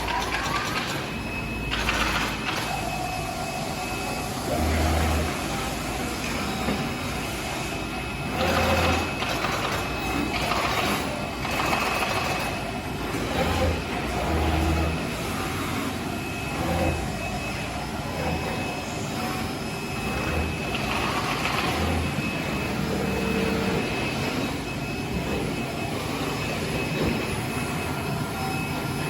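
Golden Cut TK 2316 CNC router working: a steady high spindle whine, with cutting noise that swells and fades every second or two, and short low hums every few seconds.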